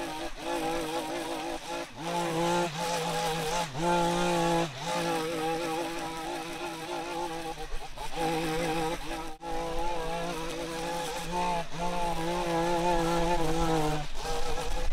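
Small gas engine of a handheld yard tool running at high revs, held steady for a second to a few seconds at a time, with brief drops in between as the throttle is let off and squeezed again.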